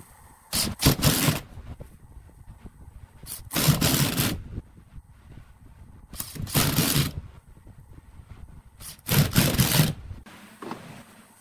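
Cordless drill-driver driving wood screws through a metal flange into a wooden blank: four bursts of about a second each, a few seconds apart, one per screw.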